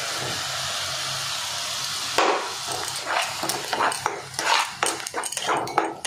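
Mustard paste sizzling in hot oil in a non-stick pan, a steady hiss; about two seconds in, a steel spoon starts scraping and stirring it in the pan with quick, irregular knocks.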